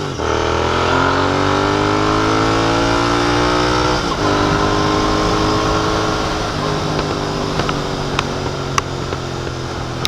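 Royal Enfield Continental GT 650's 648 cc parallel-twin engine, breathing through a free-flow Red Rooster exhaust with the dB killer taken out, accelerating hard through the gears. The pitch climbs, dips briefly at an upshift right at the start and again about four seconds in, then climbs and levels off. Near the end the throttle eases and the exhaust pops several times.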